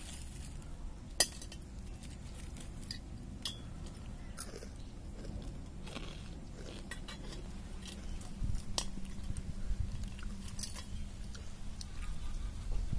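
A metal spoon clinking against a steel plate, with a sharp clink about a second in, and people chewing crisp-fried ivy gourd.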